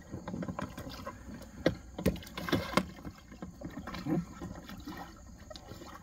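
Water sloshing and slapping against the hull of a folding polypropylene kayak as a person stands in it and rocks it, with irregular knocks of feet and shifting weight on the plastic hull. The loudest knocks come in a cluster about two to three seconds in.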